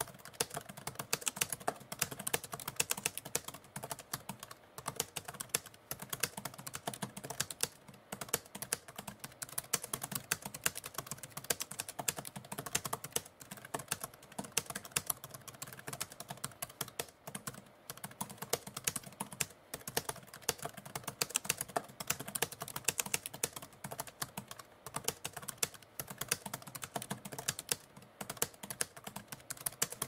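Typewriter keys being struck in quick, continuous typing, many strokes a second, with brief pauses every few seconds.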